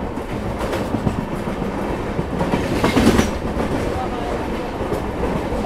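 Wheels of an LHB passenger coach running over the track, heard from on board the moving train: a steady rumble with clickety-clack, swelling into a louder clatter about three seconds in.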